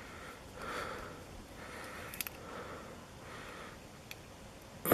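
Quiet breathing through the nose close to the microphone, with a few faint small clicks from handling the lock's parts.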